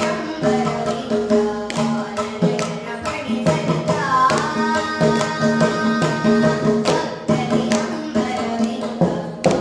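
A young girl singing a Carnatic kriti in raga Hamsadhwani, accompanied by a continuous run of mridangam strokes. About four seconds in she holds a long note with an ornamented slide in pitch.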